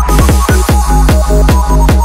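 Loud electronic dance music with a steady kick-drum beat, a little over two beats a second, over held bass and synth notes.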